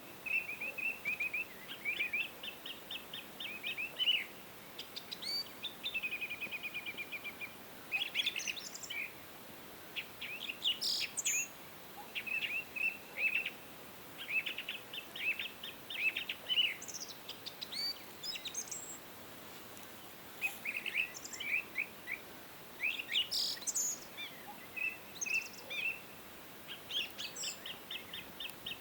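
Songbirds singing: bursts of rapid chirping trills and short whistled notes, over a faint steady hiss.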